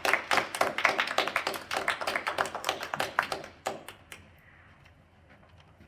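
Applause from a small audience, the separate hand claps distinct, fading out after about four seconds.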